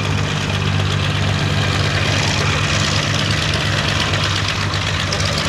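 A Supermarine Spitfire's Rolls-Royce Merlin V12 engine droning steadily in flight, with a hiss that grows louder about two seconds in.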